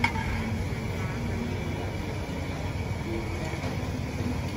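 Outdoor street-market ambience: a steady low rumble with faint voices in the background. A single sharp clink comes right at the start.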